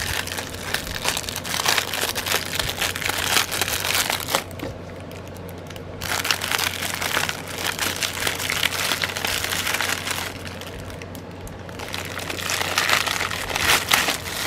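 Plastic packaging crinkling and crackling as it is handled and unwrapped, in stretches broken by two short pauses.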